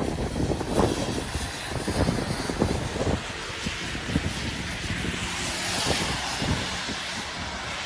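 Four-engined Airbus A380 jet engines heard on approach as a steady noise, with a high hiss that swells about five to six seconds in, mixed with gusty wind on the microphone.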